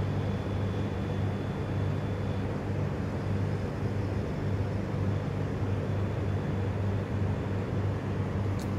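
A steady low machine hum with an even rushing noise under it, unchanging throughout, and a couple of faint ticks near the end.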